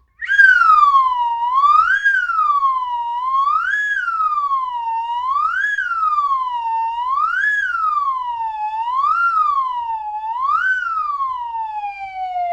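Siren sound effect wailing up and down, its pitch rising quickly and falling more slowly, about seven times, roughly every two seconds. It ends with a long downward glide.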